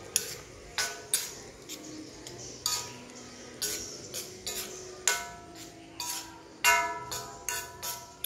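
A metal spoon knocking and scraping against a thin aluminium wok while stirring rice, more than a dozen irregular clanks, each one ringing briefly.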